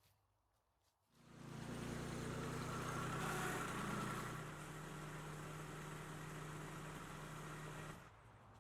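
Stihl MS362 59cc two-stroke chainsaw running at high revs, starting about a second in, louder at first and then steady before cutting off suddenly near the end.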